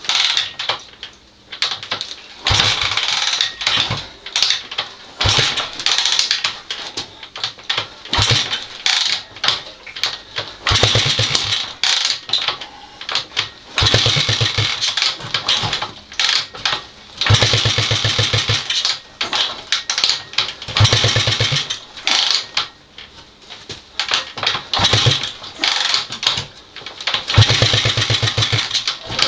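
Honda XL250S single-cylinder engine being kicked over again and again, six or more attempts of a second or two each, turning over without catching: a no-start after a renovation.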